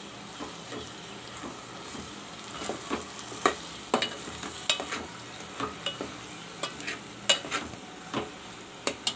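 Metal spoon stirring okra and mutton in a metal pot on the flame, scraping and clinking irregularly against the pot over a steady hiss of frying.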